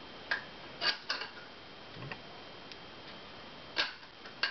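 Sharp metal clicks and clacks of a 12-gauge H&R Pardner Pump Protector pump shotgun being handled as its barrel is worked back into the receiver: about six irregular clicks.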